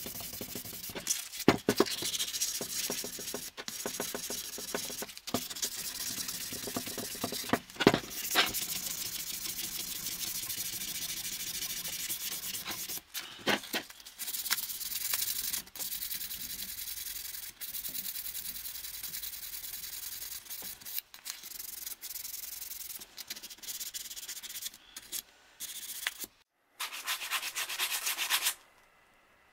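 Hand sanding the cast-iron body of an old Schuerhoff iron with sandpaper: scratchy back-and-forth strokes, pausing briefly near the end and then stopping.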